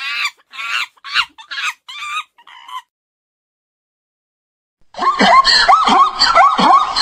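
A monkey giving a run of about seven short, high-pitched calls that grow fainter and stop a few seconds in. After two seconds of silence, a zebra starts braying loudly in rapid, repeated barking calls.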